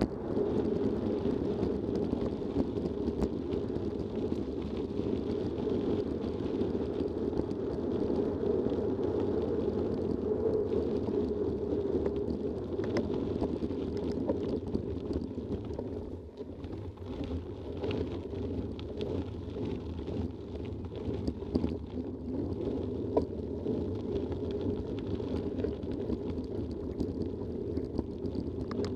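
Mountain bike riding along a gravel path: a steady rush of wind on the microphone mixed with tyre rumble over gravel, with scattered small clicks and rattles. It dips briefly about halfway through.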